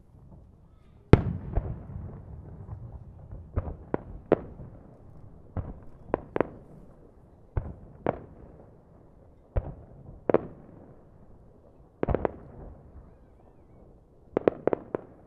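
Aerial fireworks shells bursting: a string of sharp bangs a second or so apart, each trailing a brief echo, the loudest about a second in, with quick clusters of several bangs near the end.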